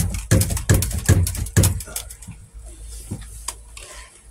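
A quick run of knocks and bumps, several a second, as a pond filter is lifted and shifted into place by hand. It settles into a few fainter scattered clicks after about two seconds.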